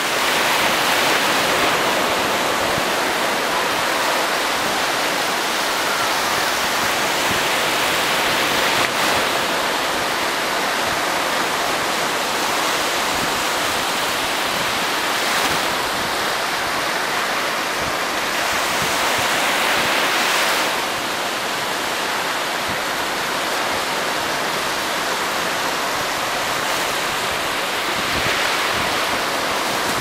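Small sea waves breaking and washing up over sand: a steady rush of surf.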